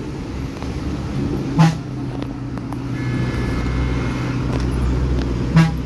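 Diesel engine of a Tamil Nadu state bus running steadily, with a vehicle horn giving two short toots about four seconds apart.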